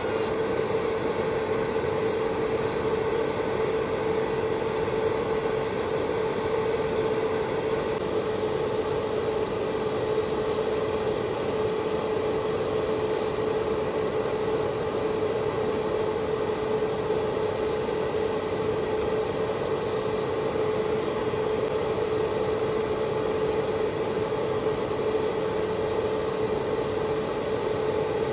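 Small electric motor of manicure equipment running with a steady hum, with a nail file faintly rasping over fingernails.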